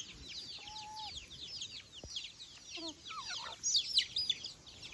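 A flock of native chickens feeding: chicks peep rapidly and continually in short, high, falling calls, with a few lower hen clucks and calls about a second in and around three seconds in.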